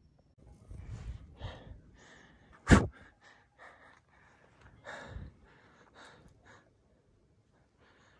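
A hiker breathing hard: a series of short, hissing breaths, with one much louder, sharp burst about three seconds in.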